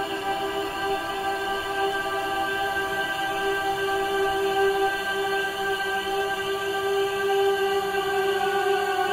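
Background music: a long, steady held chord with a choir-like vocal drone.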